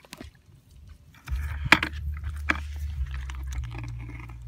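Knocks and wet rustling in a plastic bucket of live catfish and eels, with two sharp knocks about a second and a half and two and a half seconds in. A steady low rumble sets in after about a second.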